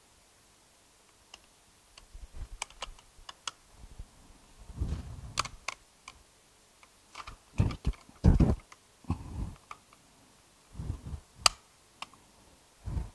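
Plastic case and circuit board of a MikroTik hEX lite (RB750r2) router being handled: scattered light clicks and knocks of plastic, with a few louder knocks about five and eight seconds in and a sharp click near the end.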